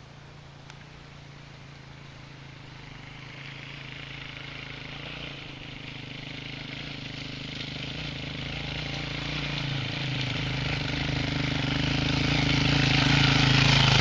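Trail motorcycle climbing a rough stony lane toward the listener, its engine note fairly steady and growing steadily louder as it approaches, loudest at the end.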